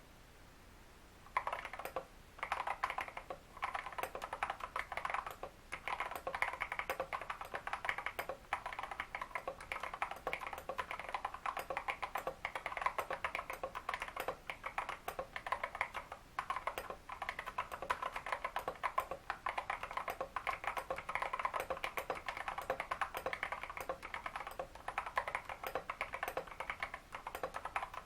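Continuous fast typing on a Royal Kludge RK100 mechanical keyboard with lubed Feker Holy Panda tactile switches and XDA keycaps: dense key clacks with short pauses, starting about a second and a half in.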